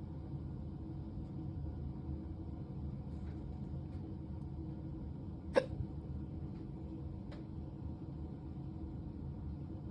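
Hiccups: one sharp hiccup a little past halfway, then a fainter one under two seconds later, over a steady low hum.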